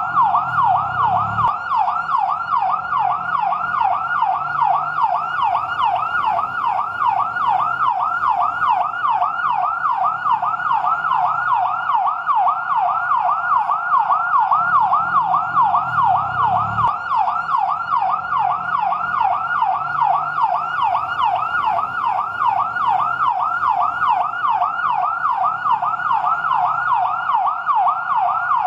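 Fire truck siren in yelp mode: a rapid, steady wail sweeping up and down about three times a second, with no break.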